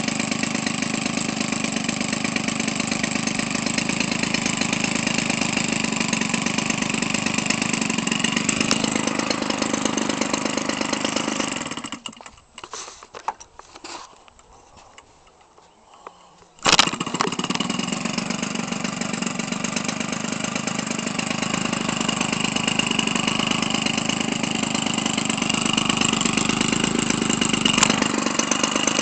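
Weedeater Featherlite 25cc two-stroke engine, fitted with a welded pipe and gutted muffler, running steadily. About twelve seconds in it cuts out, leaving a few seconds of quiet with faint clicks, then catches again abruptly with a sharp bang and runs on.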